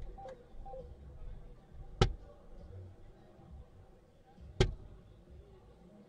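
Two soft-tip darts hitting an electronic dartboard, sharp clacks about two and a half seconds apart, each landing in the single 20.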